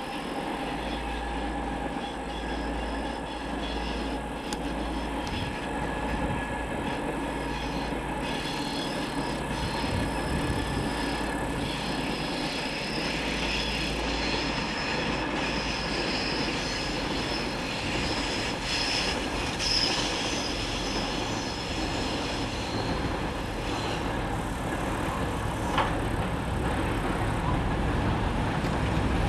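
2M62 double-section diesel locomotive, its two-stroke diesel engines running under power as it approaches with a tank-car train. A steady low hum and a high steady tone grow gradually louder as it nears.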